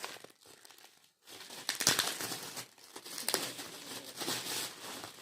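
Gift wrapping crinkling and rustling as a present is unwrapped, in a run of crackly bursts starting about a second in.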